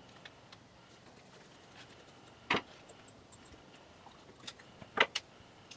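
Small metal parts of a scooter carburetor clicking and tapping as it is taken apart by hand with a screwdriver. There is a sharp click about halfway through and a louder quick pair of clicks near the end.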